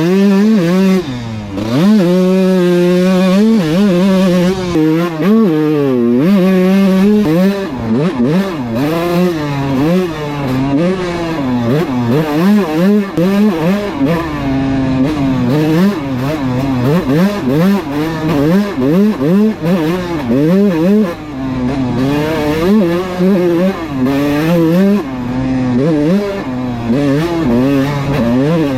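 Kawasaki KX125 two-stroke dirt bike engine being ridden hard, revving up and dropping back in pitch over and over as the throttle is opened and closed.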